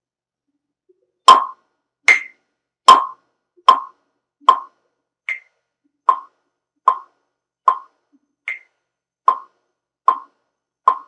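A short pitched blip sample played back in a steady loop on a Native Instruments Maschine, about one hit every 0.8 s starting a little over a second in. Every fourth hit is an octave higher.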